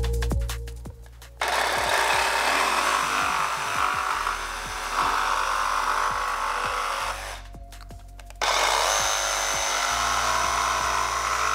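DeWalt DCS334B cordless jigsaw cutting through a wooden board: it starts about a second and a half in, stops briefly around eight seconds, then cuts again. The first cut is square, the second at a 15° bevel.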